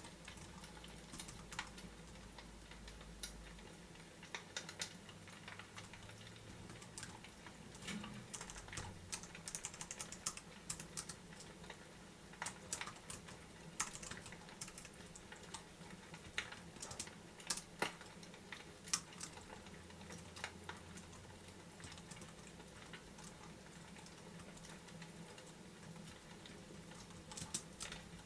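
Fireplace crackling: irregular sharp pops and clicks, sparse at times and denser in short clusters, over a faint steady low rumble.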